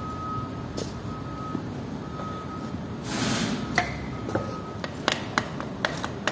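Butt of a wooden hammer handle tapping a piston crown to drive the piston through a ring compressor into the cylinder bore of a MAN engine block. About seven sharp taps start just before four seconds in and come quicker toward the end.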